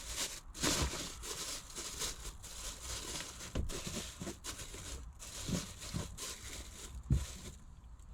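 Crinkling and rustling of a plastic and fabric car trash bag being handled, with a few soft knocks.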